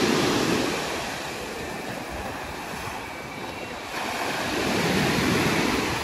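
Sea waves breaking and washing up a pebble beach, the surf swelling near the start and again from about four seconds in.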